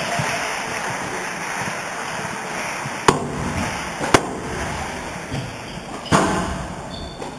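Sharp, echoing knocks of a squash ball struck and hitting the court walls: two single knocks about three and four seconds in, then louder ones near six seconds as a rally begins. Crowd noise dies away over the first seconds.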